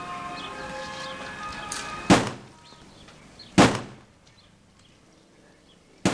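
Soundtrack music that cuts off at a gunshot about two seconds in; a second shot follows about a second and a half later, and a third right at the end.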